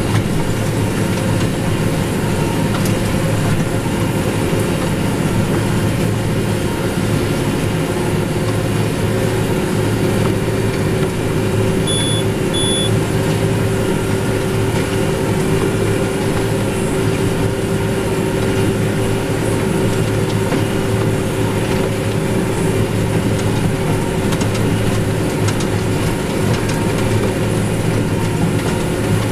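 New Holland T7060 tractor running steadily while pulling a New Holland BB930A large square baler, a steady engine drone mixed with the baler's working noise. Two short high beeps about twelve seconds in.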